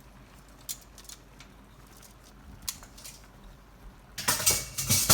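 A few light clinks of a utensil against a cooking pot, then a louder stretch of scraping and clattering about four seconds in, as rice is handled in the pot.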